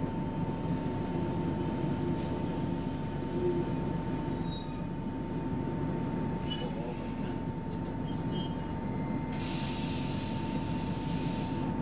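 A Roslagsbanan X10p electric train pulling in alongside at low speed and stopping, heard from inside a standing train with its steady low hum and a constant thin whine. A few short high wheel squeals come in the middle, and a hiss of about two seconds near the end.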